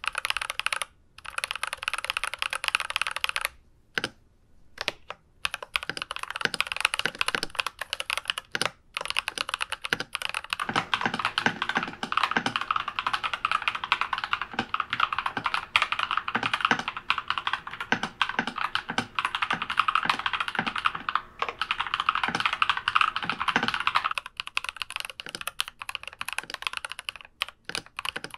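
Typing on an IQUNIX ZX75 Gravity Wave mechanical keyboard with TTC Speed Silver linear switches: a fast run of key clicks that pauses briefly about four seconds in, grows densest in the middle and thins out near the end.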